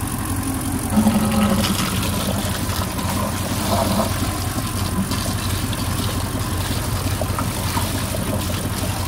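Indmar MCX 350 V8 inboard engine of a MasterCraft wakeboard boat idling steadily, running on water drawn from a bucket through a hose while being flushed for winterizing.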